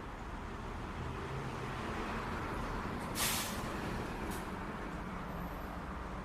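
City street traffic: a steady rumble of passing vehicles. About three seconds in comes a short sharp hiss, and a fainter, briefer one follows about a second later.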